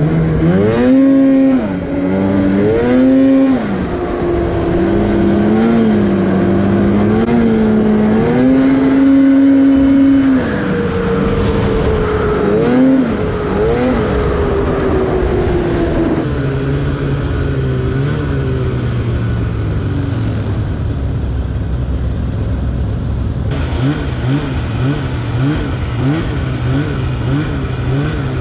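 Two-stroke snowmobile engine under way, revving up and down with the throttle for the first ten seconds, then dropping in pitch as the sled slows and running lower, with quick small throttle changes near the end.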